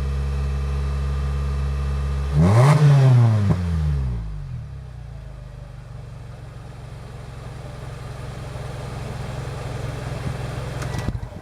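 Mitsubishi Delica D:5's exhaust through a Ganador stainless muffler whose glass-wool packing has burnt out after about 60,000 km, with two inner silencers fitted: idling steadily, then one quick rev about two seconds in that rises and falls back, then running on at a quieter idle.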